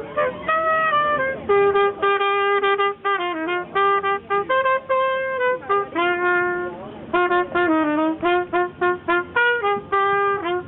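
A trumpet playing a lively melody in short, separate notes.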